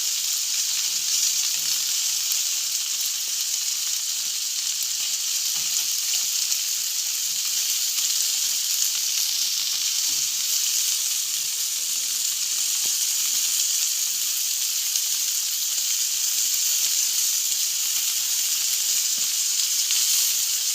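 Food sizzling on a barbecue grill: a steady, continuous high hiss with faint scattered crackles.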